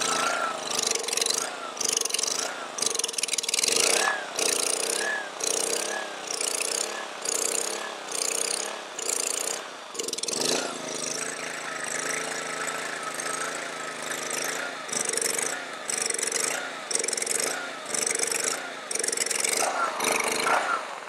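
Honda-powered pressure washer engine running unevenly, its speed rising and falling about one and a half times a second. It holds a steadier speed for a few seconds a little past halfway, then starts hunting up and down again.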